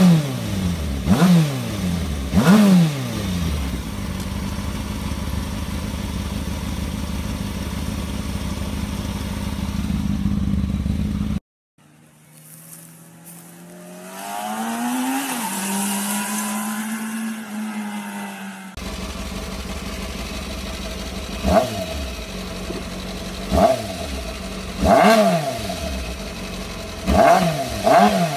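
2006 Kawasaki ZX-6R's inline-four engine, through its stock exhaust, blipped three times and then idling steadily. Midway it is heard from a distance as the bike rides off, its pitch rising and then holding. In the last part it idles again with a string of sharp throttle blips.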